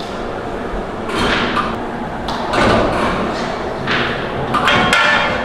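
Workshop work noise: several dull thumps and knocks, about four of them, each with a short rustling swell, over steady background clatter.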